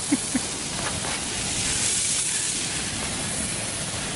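Steady hissing noise, with two short, low blips right at the start.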